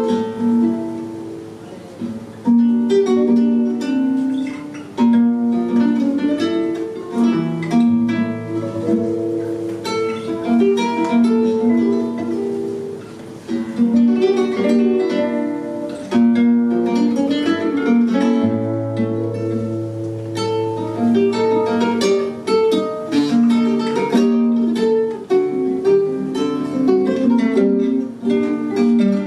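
Flamenco guitar playing the opening of a caña: picked melodic runs and plucked chords, with a held low bass note twice.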